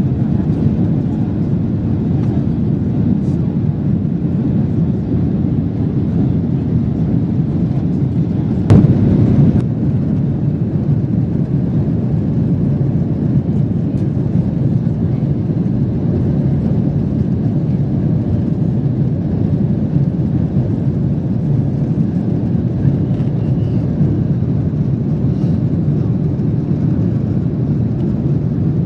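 Airbus A350-900 cabin in flight: the steady low rumble of its Rolls-Royce Trent XWB engines and the rush of air past the fuselage, heard from a window seat. A single brief knock about nine seconds in.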